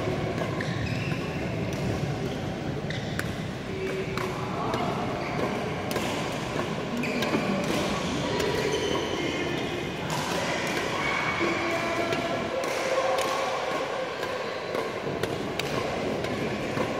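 Badminton rally: rackets striking the shuttlecock in short sharp cracks, about one a second or faster, in a large hall, with voices in the background.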